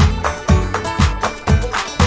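Background music with a steady beat, about two beats a second, and plucked guitar-like notes.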